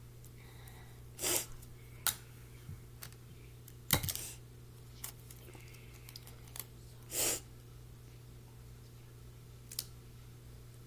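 Scattered handling noises from craft materials being worked by hand: a few short rustles and clicks, with one sharper knock about four seconds in, over a faint steady hum.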